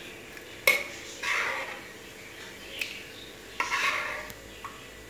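A metal spoon scooping soft cooked tomato from one steel pot into a steel grinder jar. A sharp clink of spoon on steel comes about two-thirds of a second in, followed by wet scraping. A second clink-and-scrape comes a little after three and a half seconds.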